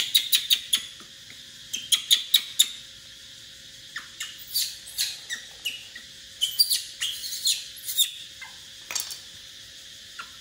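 A baby monkey making rapid, high-pitched squeaks in clusters of short calls, many falling quickly in pitch.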